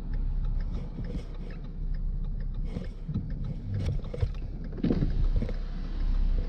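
Ford Mustang V6 on the move, heard from inside the cabin: a steady low rumble of engine and road noise, with a few light knocks and a louder bump about five seconds in.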